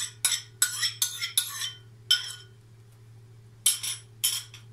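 Metal spoon clinking and scraping against a porcelain bowl while scooping out thick yogurt: a quick run of sharp clinks in the first two seconds, one more just after, then two more near the end.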